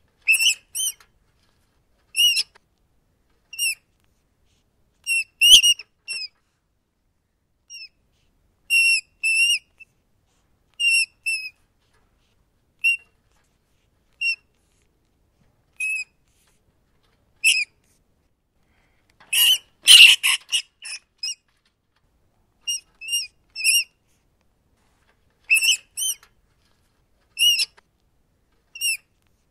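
Rat squeaking: short, high squeaks, singly or in pairs, every second or two, with a longer, harsher flurry of squeaks about twenty seconds in.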